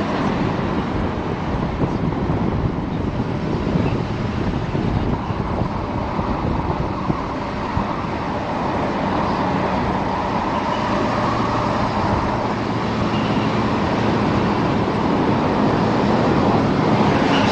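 A truck driving along a paved road: steady tyre and road noise with a low engine hum beneath, growing slightly louder near the end.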